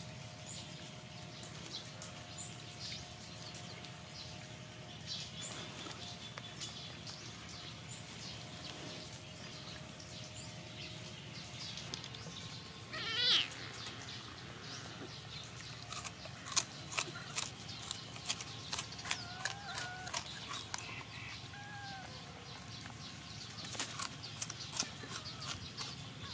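Ambient background with a steady low hum and faint high chirps. About halfway in comes one short wavering call, then a few brief gliding calls, and many light sharp clicks and rustles through the second half.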